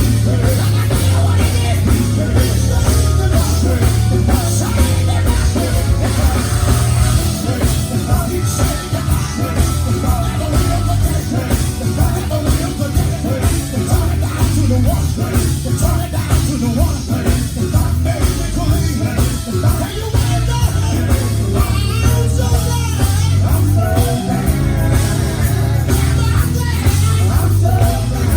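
Live gospel quartet music: a loud full band with heavy bass and drums under lead and backing singers.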